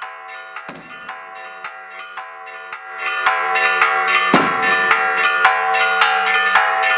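Church bells ringing in a fast, even peal of about three to four strikes a second, growing louder about three seconds in, with one heavier, deeper strike near the middle.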